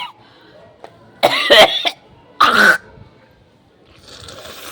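A person coughing twice, harsh throaty coughs from a heavy cold, the first longer than the second and about a second apart.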